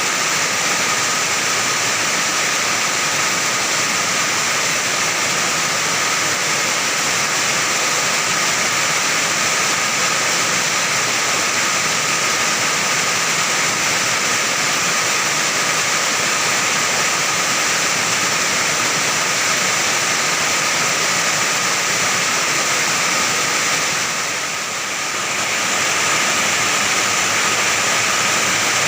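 Heavy rain pouring down on an iron roof: a loud, steady, dense rush of water on metal that eases briefly a few seconds before the end.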